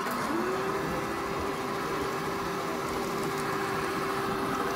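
A model locomotive running on the layout: a steady hum that slides up to one held pitch just after the start and stays level, over the exhibition hall's general noise.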